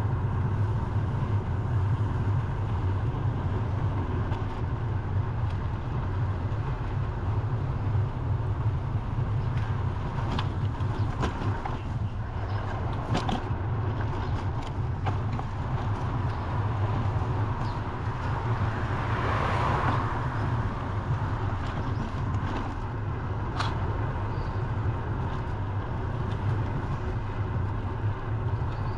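Steady low wind rumble on an action camera's microphone during a bicycle ride, over the noise of road traffic. A few sharp clicks come around the middle, and a sound swells and fades about two-thirds of the way through, like a vehicle passing.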